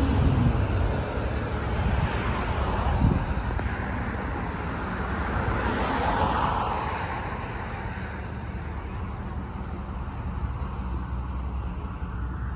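Road traffic: a steady low rumble, with a vehicle passing that swells about six seconds in and then fades away.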